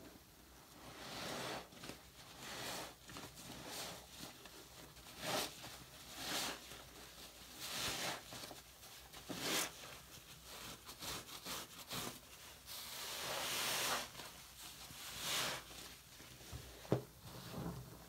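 Foam-soaked bath sponge squeezed and kneaded by hand in a sink of sudsy water: irregular wet squishes with a crackling hiss of bursting foam. The longest squeeze comes about two-thirds of the way through, and a few sharp pops come near the end.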